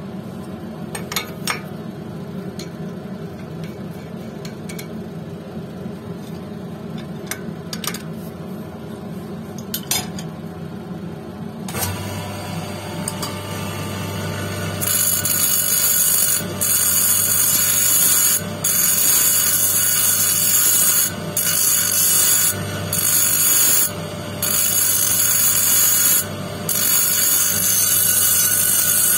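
Electric motor of a lapidary grinding machine running steadily with a few light clicks. About halfway through, a quartz stone on a dop stick is pressed against the spinning grinding wheel. It gives a harsh, hissing grinding sound in spells of a second or two, broken by short gaps as the stone is lifted off and set back on.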